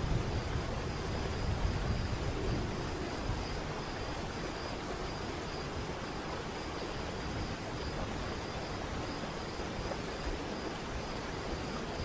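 Large waterfall cascading into a pool: a steady rushing of falling water, with a heavier low rumble in the first few seconds.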